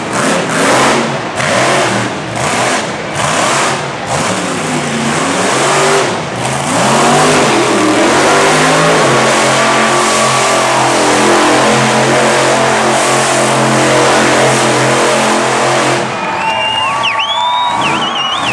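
Monster truck engine revving hard in repeated bursts, then held at a steady high speed for several seconds. Near the end the engine eases off and a high warbling tone sounds over it.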